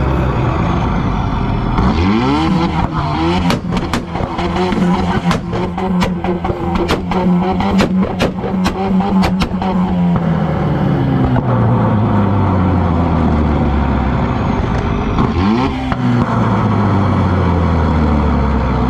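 Car engine revved up and held at high revs for several seconds while the exhaust cracks and pops sharply, the sound of a car tuned to spit flames from its exhaust. It then falls back to idle, with another short rev near the end.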